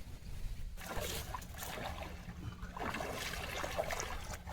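Water splashing and dribbling in irregular bursts, starting about a second in, as a fish is handled at the water's edge.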